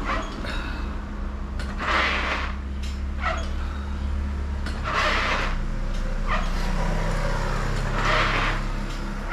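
A man breathing out hard with each abdominal crunch: three forceful breaths about three seconds apart, with lighter breaths between them, over a steady low hum.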